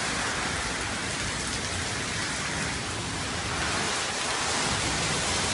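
Heavy typhoon rain pouring down, a steady even hiss.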